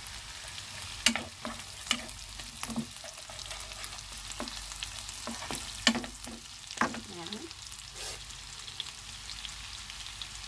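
Butter sizzling in a frying pan with garlic, onion and lemongrass browning in it, stirred with a wooden spoon that scrapes and knocks against the pan now and then.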